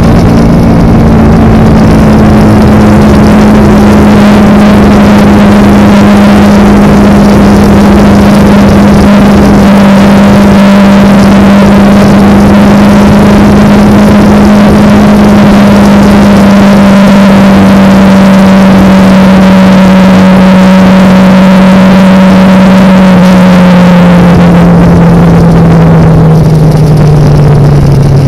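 Kawasaki Ninja motorcycle's parallel-twin engine running at a steady cruising pitch, loud under a thick rush of wind and road noise. Near the end the engine note drops as the bike slows.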